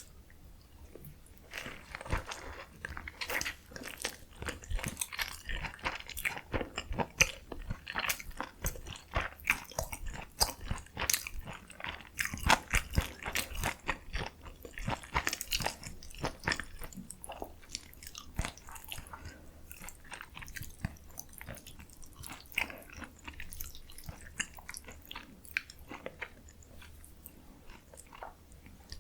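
Close-miked chewing and crunching of food: a dense run of irregular crisp crunches and wet mouth sounds, thinning out towards the end.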